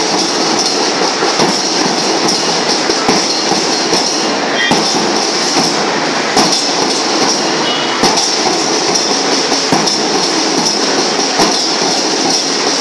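School marching band (band melam) playing, heard as a loud, dense and steady clatter of drums and cymbals.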